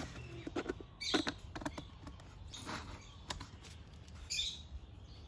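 Cardboard being handled and rubbed against the inside of a hard plastic scooter top case: a handful of irregular short scratches and rustles.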